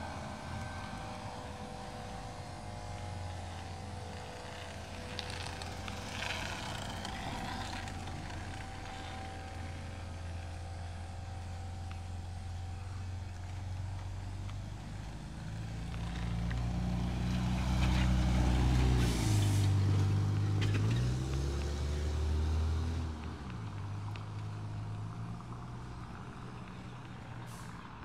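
A motor vehicle's engine hums low and grows louder as it passes, loudest about two-thirds of the way through. Its pitch slides down and back up around then, with a short hiss near the same moment.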